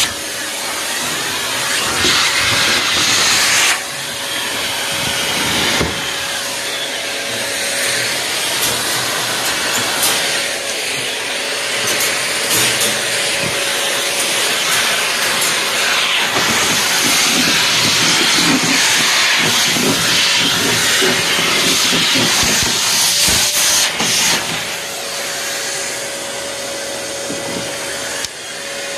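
Vacuum cleaner running continuously: a steady rushing airflow noise with a constant motor hum, its loudness shifting every few seconds as the nozzle is moved about.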